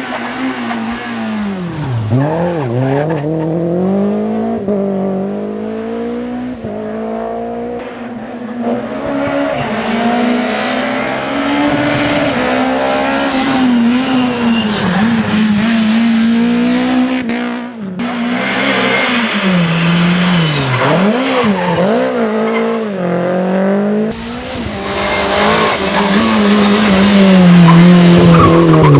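Renault Clio Williams rally cars' four-cylinder engines at full throttle, revving up and dropping back again and again through gear changes and lifts. The sound changes abruptly about eighteen seconds in and again about six seconds later.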